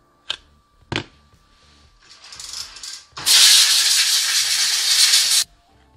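Compressed air from a blow gun blasting out the cordless impact wrench's housing to clean it. Two short clicks come first, then a softer hiss, then a loud hiss for about two seconds that cuts off sharply.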